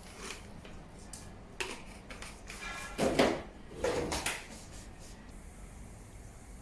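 Household objects being handled: a few knocks and scrapes, the loudest two about three and four seconds in, the sort of sounds a drawer or cupboard being opened and shut makes.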